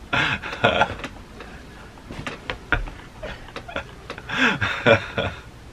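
A man laughing in two bursts, one at the start and a longer one about four seconds in.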